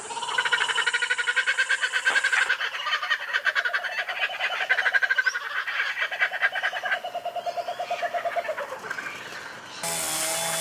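Birds calling in a fast, rhythmic chattering series that lasts about nine seconds, with more than one voice overlapping. Near the end a steady motor-like drone takes over.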